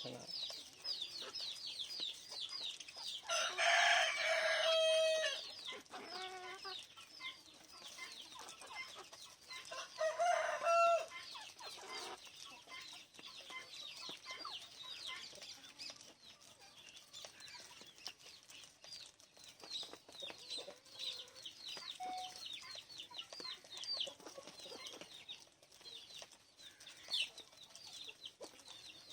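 Budgies and lovebirds chirping in a quick, continuous high-pitched twitter. Two louder, drawn-out calls from a larger bird break in, one lasting about two seconds around four seconds in and a shorter one around ten seconds in.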